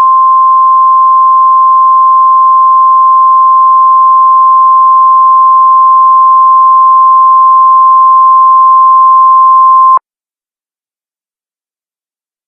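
Emergency Alert System attention signal in a mock tornado warning: one loud, steady, single-pitched beep of about 1050 Hz, the NOAA Weather Radio-style warning alarm tone, held for about ten seconds and then cut off abruptly.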